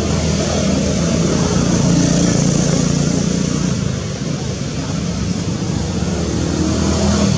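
A steady low engine-like hum with several droning tones, over a constant hiss.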